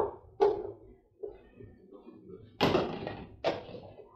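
Knocks and clatter as diced potatoes are tipped from a plastic bowl into a stainless steel pot and stirred in with a wooden spoon; about five separate knocks, the loudest a longer clatter a little past halfway.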